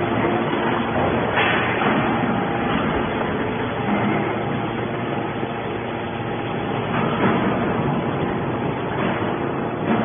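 Hydraulic metal scrap baler running: a steady din from its hydraulic power unit while the ram pushes a compressed bale of metal shavings out of the chamber, with a couple of brief knocks.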